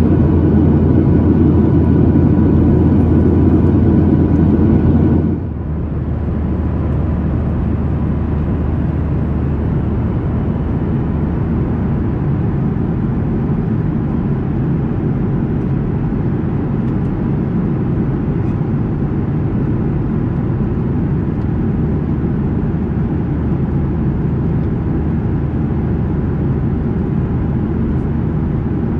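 Cabin noise of a Boeing 737-900ER in cruise: a steady, deep roar of its CFM56 engines and the airflow, heard from a window seat over the wing. About five seconds in the roar drops slightly and its faint thin tones stop, then it runs on evenly.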